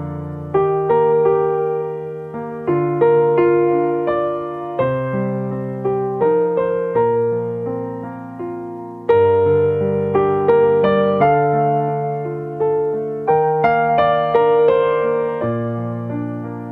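Background music: a slow, gentle solo piano piece, notes and chords struck about once a second and left to ring out.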